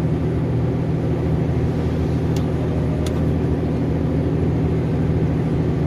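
KAMAZ truck's diesel engine running steadily under heavy load, heard from inside the cab while pulling up a long steep climb in a low gear.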